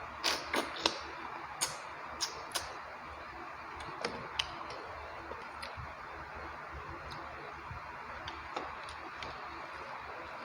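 Close-miked eating sounds of rice and chicken curry: sharp wet mouth clicks and smacks of chewing, several in the first few seconds and fewer later, over a steady hiss.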